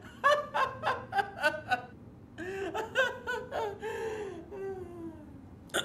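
Hearty laughter: a quick run of short 'ha' bursts, about five a second, then a long drawn-out laugh that slides down in pitch and trails off.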